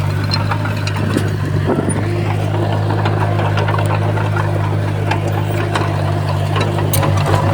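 Crawler bulldozer's diesel engine running steadily, with scattered sharp clicks and knocks over it.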